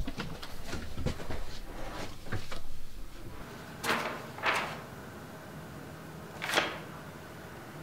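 Kitchen clatter: a quick run of small knocks and clicks from a pan, utensils and cupboard handling for the first three seconds or so, then three short breathy rushes of sound.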